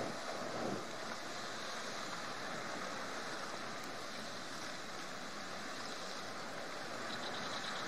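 Steady rushing noise of sea water and wind on the microphone as lava runs into the sea, with a short knock right at the start and a faint rapid ticking near the end.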